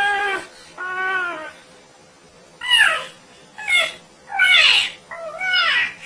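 Parrot mimicking human moaning: six drawn-out, wailing calls, several sliding down in pitch.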